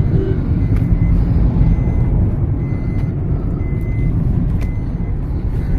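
Moving vehicle on the road: a steady low rumble of engine and road noise.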